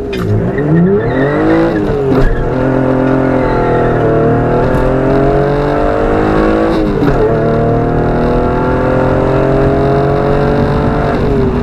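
Hyundai Tiburon engine and exhaust accelerating hard through the gears at wide open throttle, heard from inside the cabin with the windows up. The car has DC Sports headers and a single Magnaflow muffler, with no catalytic converters and no resonators. The engine pitch climbs, drops at an upshift about two seconds in, climbs again, drops at a second upshift about seven seconds in, and climbs once more.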